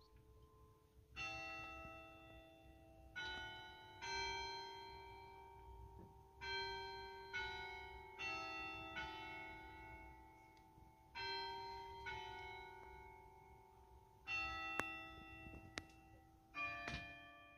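Church bells ringing a slow tune of about a dozen strokes at different pitches, each stroke left to ring and fade, with a few sharp clicks near the end.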